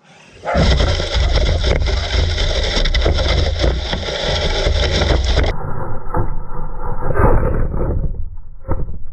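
Loud, rough rumbling and rattling of an RC car and its towed camera sled running over a lawn, with many irregular knocks; the sound changes abruptly about halfway through.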